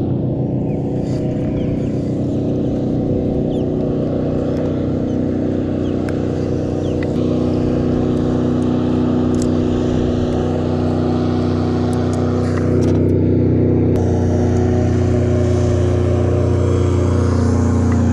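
A low, steady engine drone. It steps up slightly in pitch about 7 seconds in and gets a little louder about 13 seconds in.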